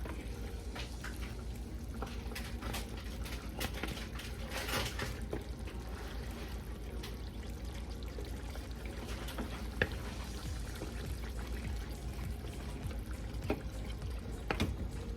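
Pot of chicken in tomato sauce bubbling as it simmers, with a few small clicks over a steady low hum.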